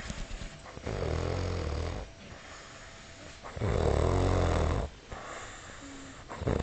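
A man snoring heavily in his sleep after drinking too much: two long, loud snores of about a second each with quieter breaths between, and a third snore starting at the very end.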